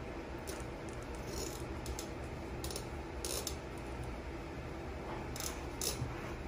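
A slicker-style pin brush raking through a chow chow's thick mane, giving a run of short, scratchy brush strokes at an uneven pace over a steady low hum.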